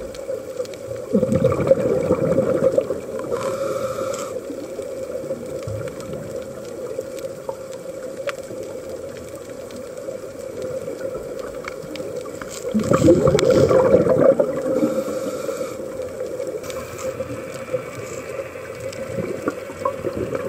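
Underwater sound on a scuba dive: two surges of bubbling from a diver's regulator exhaling, about ten seconds apart, over a steady hum.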